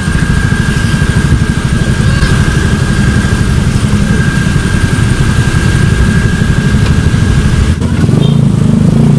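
Motorcycle engine running at low speed, heard from the rider's seat as a loud, steady low rumble. A thin, steady high whine sits over it and stops about eight seconds in.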